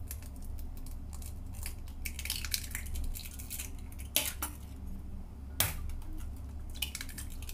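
A hen's egg being broken open by hand over a stainless steel bowl, with scattered light clicks and knocks of eggshell and utensils against the bowls; the sharpest knock comes near the middle. A steady low hum lies underneath.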